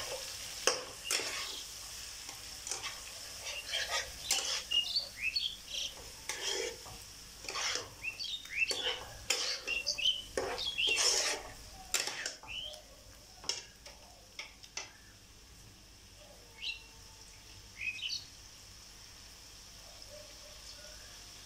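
Steel spatula scraping and knocking against a non-stick kadai as marinated mutton and onions are stir-fried, over the sizzle of the meat frying in oil. The stirring stops about fifteen seconds in, leaving only a faint sizzle.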